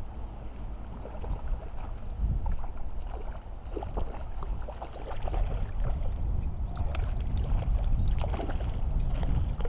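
Wind buffeting the microphone, with a hooked trout splashing and thrashing at the lake surface as it is played toward the net; the splashes start a few seconds in and come more often near the end.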